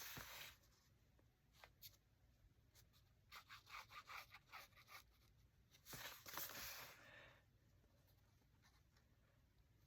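Faint rustling and rubbing of paper and cardstock being handled on a desk, a few short scrapes with quiet gaps between, the longest about six seconds in.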